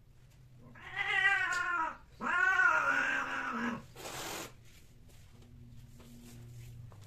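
Female cat's yowl at the end of mating: two long, loud, wavering yowls, the second breaking off about four seconds in into a short hiss as she turns on the tom.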